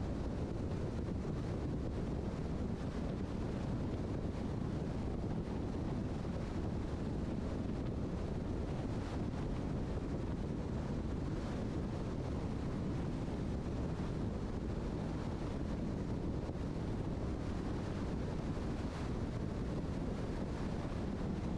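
Steady road noise of a car at highway speed, a low rumble of tyres and wind at an even level, sped up to double speed.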